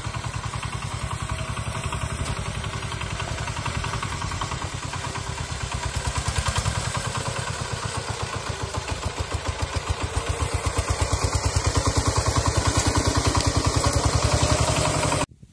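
Kentavr MB 1010DE-6 heavy single-cylinder diesel walk-behind tractor chugging steadily as it drives with its trailer over rough grassy ground. It gets louder for the last few seconds, then stops abruptly near the end.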